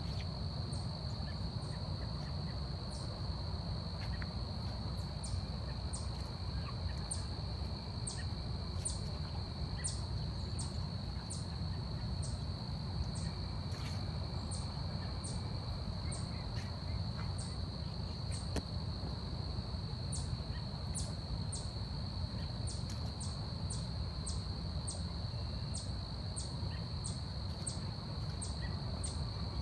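Forest insects calling: a steady high-pitched insect drone with short, sharp chirps repeating roughly once or twice a second, over a steady low rumble.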